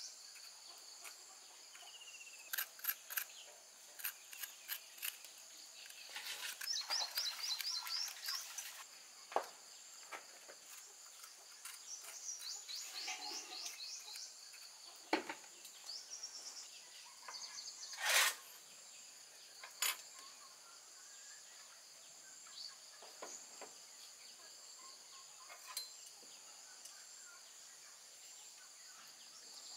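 Birds chirping over a steady high-pitched insect drone, with scattered clicks and knocks of a knife and spoon working food on a wooden cutting board; the loudest knock comes a little past halfway.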